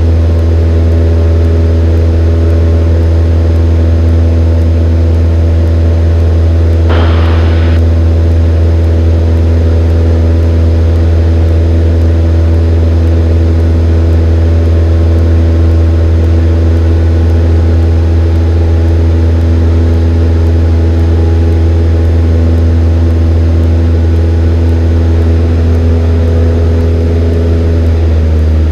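Cessna 172N's four-cylinder Lycoming engine and propeller running steadily in flight, heard as a loud, even drone from inside the cabin. A brief hiss comes about seven seconds in, and the engine note shifts slightly near the end.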